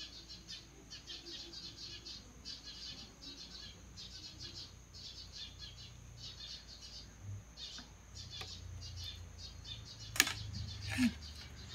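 Small birds chirping in quick, irregular bursts of high notes over a faint low hum. Near the end, two sharp clicks come about a second apart, the first the louder.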